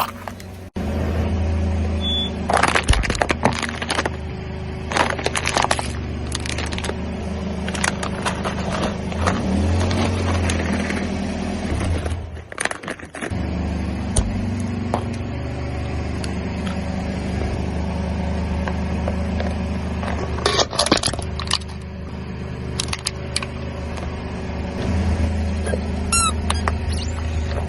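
A car engine running low and steady while the tyre rolls over and crushes objects, giving several bursts of crackling and crunching. A few short high squeaks come near the end.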